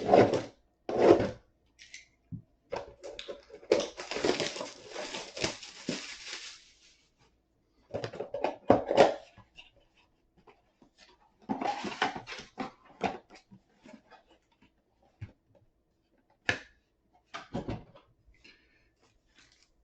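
Sealed box of trading cards being unwrapped and opened by hand: wrapping crinkling, cardboard tearing and packs rustling as they are taken out, in bursts with a longer stretch of crinkling a few seconds in.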